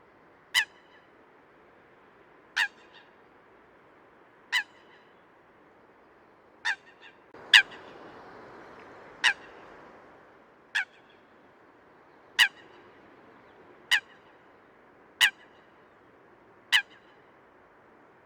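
Eurasian coot giving short, sharp, honking calls, one every one and a half to two seconds, eleven in all. About halfway through, a rush of noise rises for a couple of seconds under the calls.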